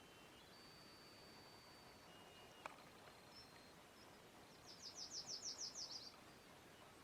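Near-silent outdoor air with a small bird singing one short, rapid trill of about nine high notes, a little under five seconds in.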